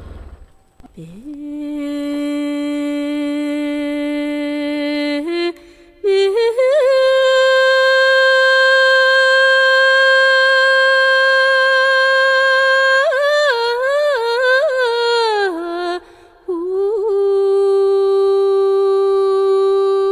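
A woman's voice singing unaccompanied, holding long single notes. It starts low, steps up to a higher held note after about five seconds, breaks into quick trilling turns that fall away about two thirds of the way in, then settles on a middle note.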